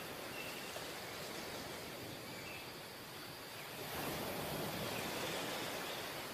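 Sea surf breaking and washing up a sandy beach, a steady rushing wash that swells louder about four seconds in as a wave comes in.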